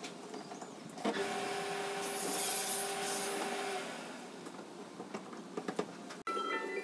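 Plastic wardrobe being closed up: a knock about a second in, then about three seconds of scraping, rubbing noise with a steady whine through it that fades away.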